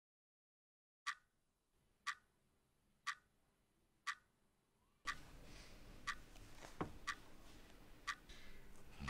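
Wall clock ticking, one sharp tick each second, after about a second of dead silence. A faint room hum comes in about halfway through.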